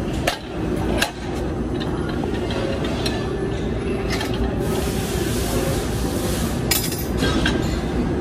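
Metal ceiling-fan housings clinking against each other and against the metal rods they are stacked on as they are handled: a couple of sharp clinks within the first second or so, then several close together near the end. Underneath is a steady machine hum.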